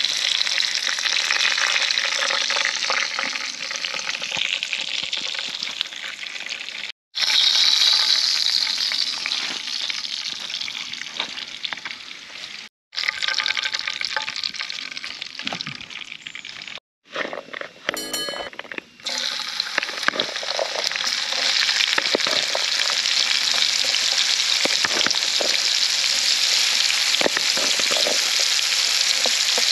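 Steak and chili peppers sizzling in hot oil in a frying pan, with occasional stirring and scraping. The sizzle cuts out abruptly a few times. From about two-thirds of the way through, chopped onion and carrot fry in the oil with a steady, loud sizzle.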